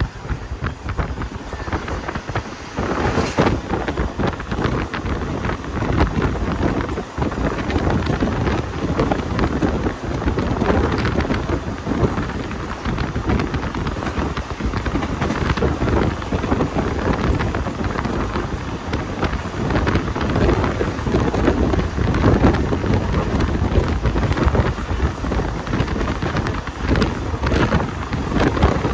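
Wind buffeting the microphone over the rumble of a moving passenger train, steady throughout.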